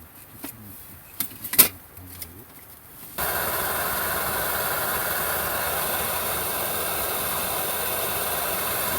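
A few small clicks and knocks, then about three seconds in a camp stove burner lights and runs with a steady, even roaring hiss, reheating lukewarm water.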